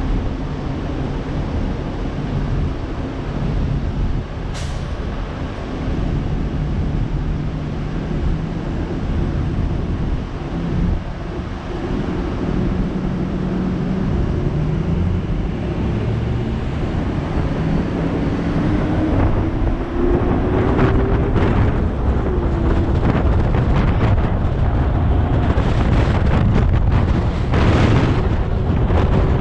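Road traffic passing steadily: engines and tyres of cars and trucks, loud and continuous. One vehicle's engine rises in pitch as it accelerates in the second half.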